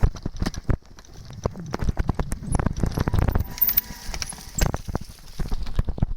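Irregular knocks and clicks over a low rumble, loudest about midway, the sound of moving on foot or by bike over rough ground.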